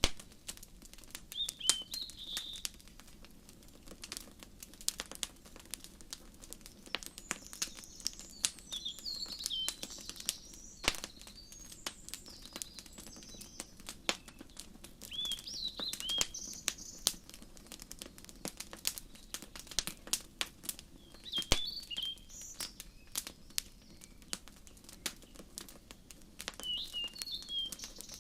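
Wood fire crackling and popping with sharp, irregular snaps, over a faint steady low rumble. Songbirds chirp in short bursts of high notes about every five or six seconds.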